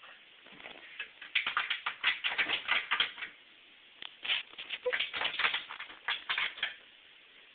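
An American Staffordshire terrier's claws scratching and scrabbling in quick runs of clicks, in two bouts of about two seconds each.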